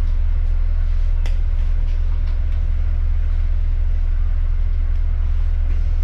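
Steady low rumble of a moving bus heard from inside the cabin, engine and road noise with a few faint clicks and rattles.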